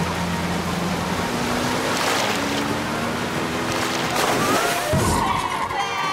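Cartoon racing sound effects: small kart motors running, their pitch stepping up over the first few seconds, with water splashing and sloshing as a kart ploughs through a pond.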